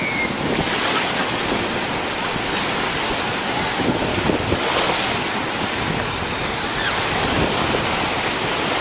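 Small surf breaking and washing up the sand in a steady rush of water.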